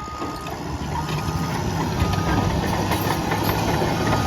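Caterpillar D6N bulldozer's diesel engine running steadily under load while it pushes concrete chunks, with a backup alarm beeping about once a second.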